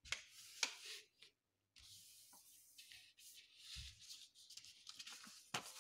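Faint rustling and swishing of a paper sheet being folded and creased by hand, in a few brief strokes, with a soft thump about two-thirds of the way in.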